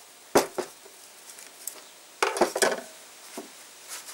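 Metal clinks and light clatter as a piston ring is worked off an engine piston and handled: two sharp clinks about half a second in, then a quick cluster of clinks a little past two seconds.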